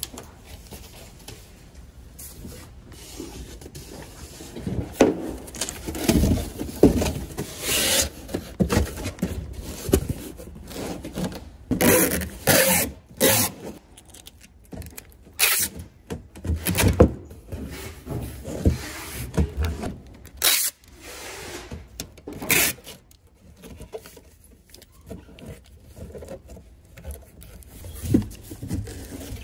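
Flat cardboard boxes being pulled from a shelf, handled and folded into shape: irregular scraping and rubbing of cardboard with short knocks, busiest in the middle stretch.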